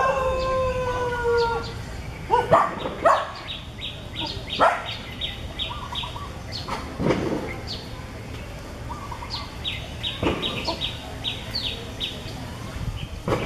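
Outdoor animal calls: a long whining call that falls slightly in pitch at the start, then several short calls that sweep down in pitch, over runs of quick high bird chirps.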